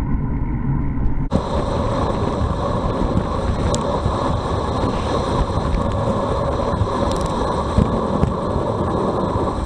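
Wind rush and road noise on a handlebar-mounted bike camera while cycling. About a second in, the sound switches abruptly to a louder, hissier rush that stays steady.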